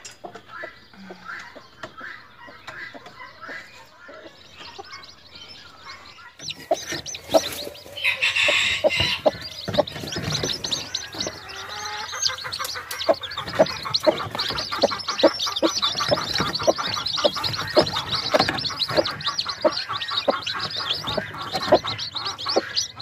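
A broody free-range hen clucking and her newly hatched chicks peeping. The peeps come thick and fast from about six seconds in, with a brief rustling burst near eight seconds.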